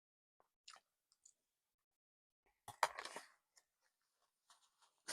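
Quiet, with scattered faint clicks and a short cluster of sharper clicks and rustle about three seconds in.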